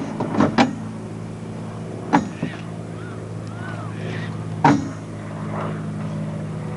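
A steady low hum like an idling engine, with a few sharp metallic knocks, twice early on and twice more later.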